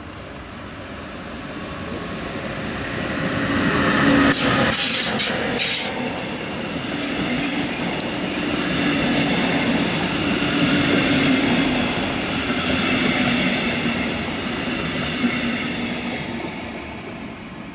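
A DB Regional-Express, a BR 146 electric locomotive with double-deck coaches, passing through the station. It grows louder over the first few seconds, runs loud for about ten seconds with a quick run of wheel clicks over rail joints and points between about four and nine seconds in, then fades away.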